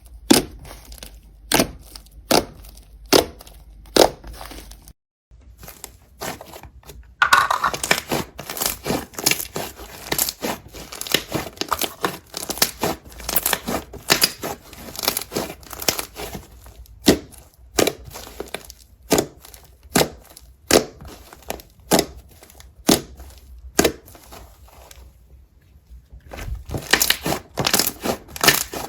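Slime being squeezed and pressed by hand, giving sharp crackling clicks and pops: spaced out at first, dense for long stretches, then sparser, with two short quiet breaks.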